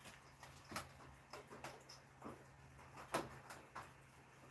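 Faint, scattered clicks and light knocks of small objects being handled at a workbench, about six in all, over a low steady hum.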